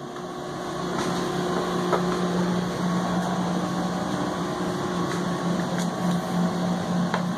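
Steady low mechanical hum with a rush of air, growing louder about a second in, with a few faint knocks.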